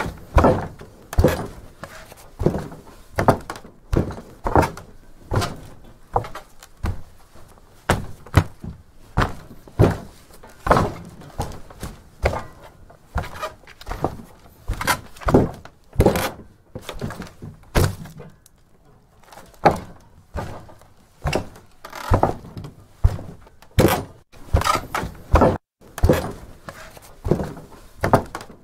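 Footsteps on a wooden attic floor: heavy thudding steps at about one a second, easing off briefly a little past the middle before carrying on.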